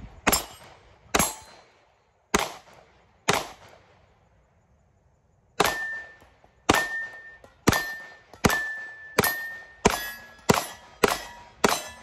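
Sig Sauer P365 X Macro 9mm pistol fired in a string of about thirteen shots: four about a second apart, a pause of about two seconds, then nine quicker shots about 0.7 s apart. Each of the later shots is followed by a short ring of a steel target being hit.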